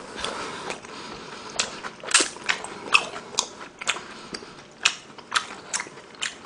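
Close-up chewing of a mouthful of beef tangsuyuk (battered fried beef in sweet-and-sour sauce): wet mouth sounds with sharp clicks and crunches about twice a second.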